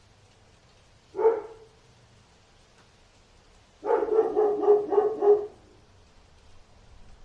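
A dog barking: one single bark about a second in, then a quick run of about five barks a few seconds later.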